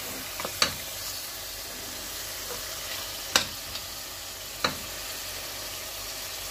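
Spiced masala sizzling in a steel pot as mutton trotters are stirred through it with a stainless steel spatula, which clinks sharply against the pot three times.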